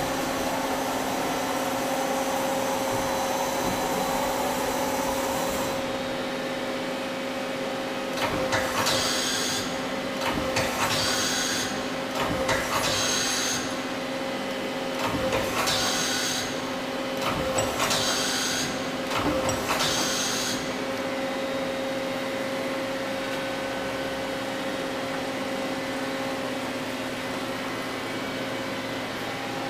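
Doosan Puma 600L CNC lathe running with a steady electric hum. Midway through, six short hissing bursts come in an even rhythm, then stop.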